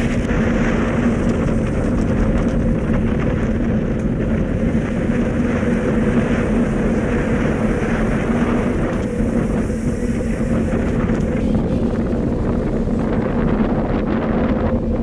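Wind and water noise aboard a sailboat under way at sea, with wind buffeting the microphone, over a steady low mechanical hum.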